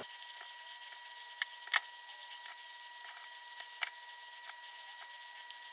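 Key limes being squeezed by hand over a bowl: a few faint, scattered clicks and taps, the sharpest two about a second and a half in, over a faint steady high whine.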